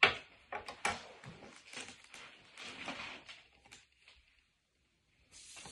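Handling noises on a wooden table: a sharp knock as a book and glasses are set down, a few lighter knocks, then clothing rustle and shuffling as a person gets up from the table. A short rustling hiss comes near the end.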